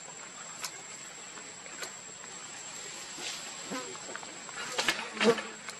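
A steady high-pitched insect drone, one unbroken note, with a few faint clicks. About five seconds in there is a brief, louder burst of sound.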